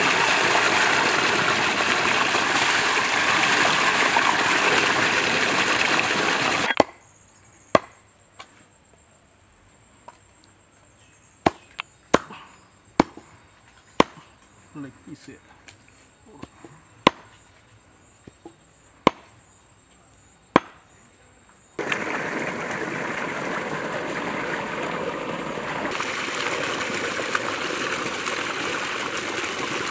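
Water gushing from a pipe outlet as hands are washed in it. Then, after a sudden cut, about a dozen sharp, irregular chops of a knife cutting duck meat on a wooden log block. Near the end, water gushing again as the meat is rinsed in a pot under the pipe.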